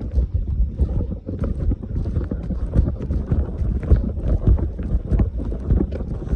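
Wind buffeting the microphone in a steady low rumble, with irregular knocks and rustles throughout.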